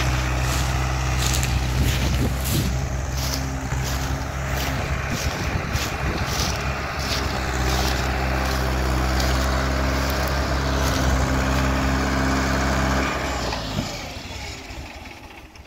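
Diesel farm tractor engine running steadily as it pulls a trolley loaded with about 14 tonnes of sugarcane, with a light regular ticking about twice a second over it. The engine sound fades away near the end.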